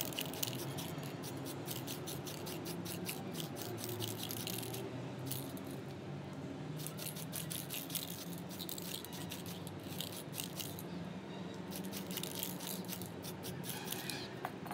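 Aerosol spray-paint can spraying in several bursts, a crackly hiss that stops and starts, with short breaks about five and eleven seconds in.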